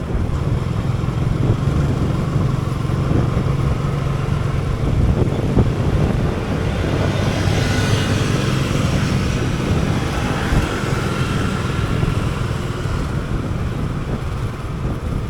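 Motorcycle engine running steadily on the move, with road and wind noise and surrounding city traffic; the hiss grows louder for a few seconds around the middle.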